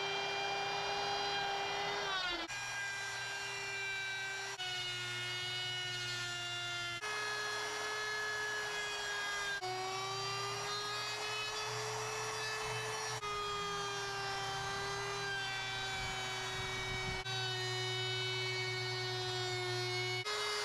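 Handheld electric wood router running at high speed, a steady whine whose pitch sags and recovers slightly as the bit cuts into the wood slab. The sound breaks off and picks up again abruptly every few seconds.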